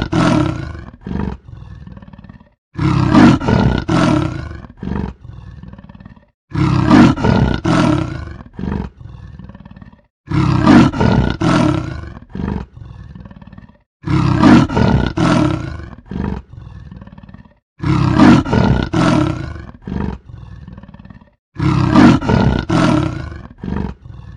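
Leopard roaring, the same call repeated about every four seconds: a loud stretch of about a second and a half followed by a few weaker grunts, then a short pause before the next.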